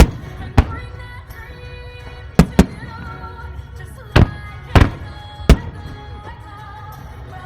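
Fireworks shells bursting in sharp bangs, about seven spread through the stretch, some in quick pairs, over background music with long held notes.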